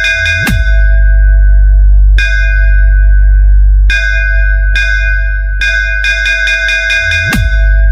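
Electronic DJ sound-check music: a heavy, sustained deep bass under bell-like synth hits. Twice a quick roll of repeated hits builds to a short rising sweep, about half a second in and again near the end, before the bass comes back in full.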